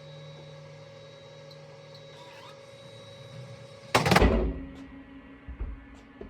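Vending machine dispensing a bottled drink: a low motor hum, then a loud thump about four seconds in as the bottle drops into the delivery bin, followed by a couple of lighter knocks.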